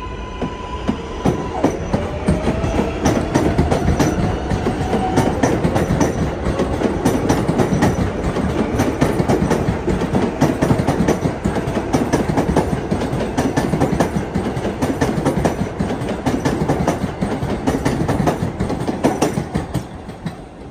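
New York City Subway 7 train of R188 cars passing on the steel elevated structure: dense clatter of wheels on the rails, with a motor whine that rises in pitch about two to five seconds in, fading as the train draws away near the end.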